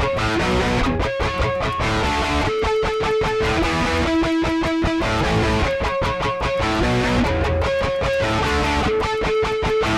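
Intro music: an electric guitar piece with a steady rhythmic strum and a riff that repeats about every four seconds.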